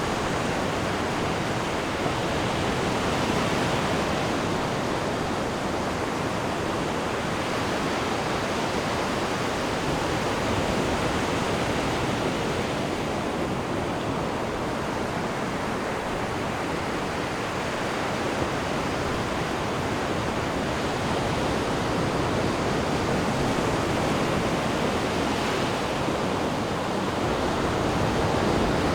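Ocean surf washing onto a beach: a steady rush of breaking waves that swells and eases every several seconds.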